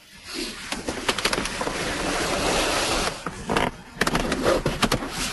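Loud rushing noise with scattered crackles, dipping briefly a little under four seconds in.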